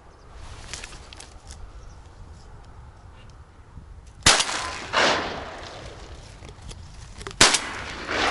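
Two close shotgun shots about three seconds apart, each followed by an echo rolling back across the water.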